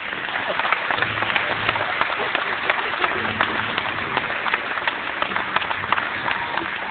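Audience applauding: dense, steady clapping from many hands, with a few voices mixed in.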